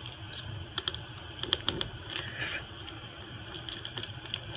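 Irregular light clicks and taps of small repair tools and tiny parts against an iPhone SE's internals during disassembly, with a cluster of sharper clicks about a second and a half in.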